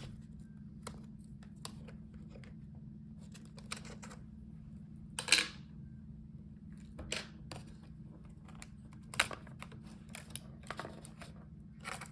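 Scattered clicks and scrapes of a Dell Precision 3561 laptop's motherboard being worked loose and lifted out of its plastic chassis. The loudest are a scrape about five seconds in and a sharp click about nine seconds in, over a steady low hum.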